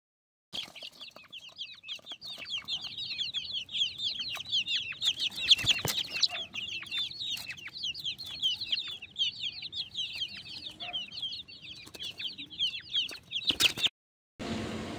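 A crowd of young chicks peeping without pause, a dense run of overlapping high chirps with a few sharp knocks among them. The peeping cuts off just before the end.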